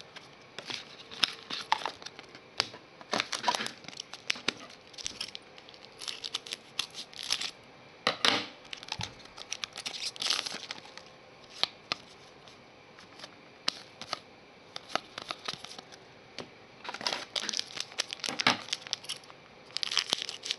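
Hands handling 2015 Donruss Soccer trading cards and their crinkly card-pack wrapper: irregular rustles, crinkles and short scrapes in bursts, with a busier stretch near the end.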